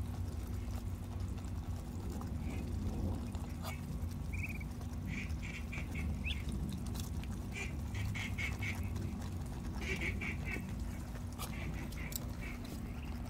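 A flock of Muscovy ducks and mallard hens feeding, giving short quacking calls in quick series of three to five, with a few sharp clicks. A steady low hum runs underneath.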